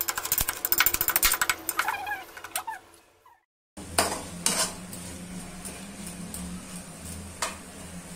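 Steel pestle pounding whole spices in a steel mortar, a quick run of sharp metallic strikes for about two and a half seconds. After a short break, a steel spatula scrapes and stirs masala in a frying pan, with a few separate scrapes over a faint steady hum.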